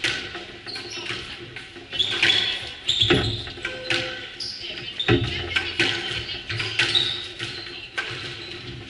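A squash rally: the ball cracks off rackets and the court walls in a run of sharp hits, the loudest about three and five seconds in, while sneakers squeak on the wooden court floor.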